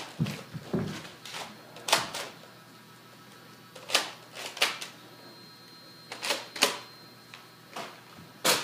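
Sharp plastic clicks and clacks from a toy Nerf blaster being handled, coming singly and in close pairs about every second, with a few soft low thumps in the first second.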